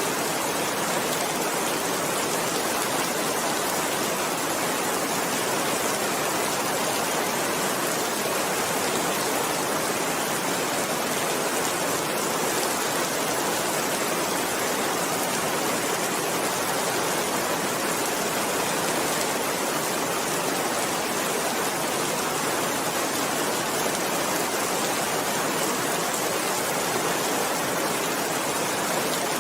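Steady rain falling, an even, unbroken hiss with no thunder and no change in strength.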